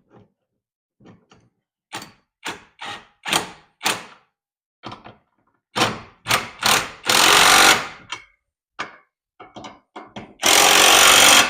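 Cordless impact wrench hammering in two bursts of about a second each, tightening a hitch anti-rattle clamp. Short clicks and knocks of parts being handled come before and between them.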